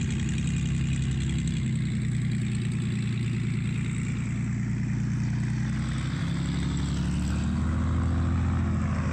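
Verner Scarlett 9S nine-cylinder air-cooled radial aircraft engine running steadily, driving a wooden propeller. Its speed shifts a little about two seconds in and again around six seconds, and it is slightly louder near the end.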